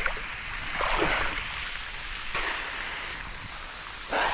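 Water splashing and sloshing as a person dips into and moves in a deep, cold pool, in three surges over a steady rush of water.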